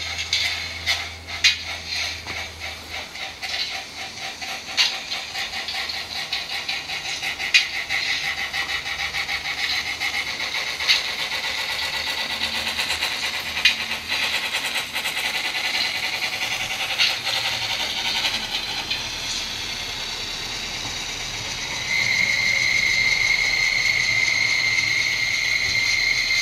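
Brass model ten-wheeler steam locomotive (CB&Q class K1) running on a test track with two metal passenger cars: a small motor and gears whirring, with fast even clicking and rattling of wheels on the rails and sharper clicks over the rail joints. In the last few seconds a steady high whine comes in and the sound gets louder.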